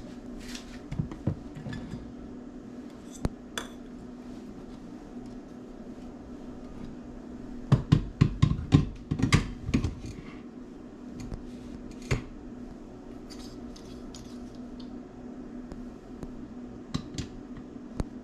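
Glass blender jar and its lid being handled and set onto the metal blender base on a countertop: scattered clinks and knocks, with the busiest, loudest cluster about eight to ten seconds in.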